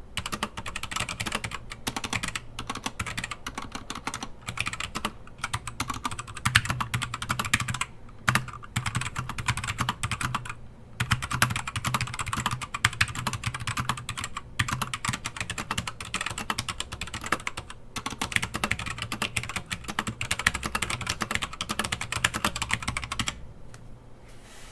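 Fast, continuous typing on a Keychron K4 mechanical keyboard with LK optical box switches and O-rings fitted under the letter keycaps: a dense clatter of keystrokes with a few brief pauses, stopping about a second before the end. The O-rings are too thin to reach the switch top, so the keys still bottom out.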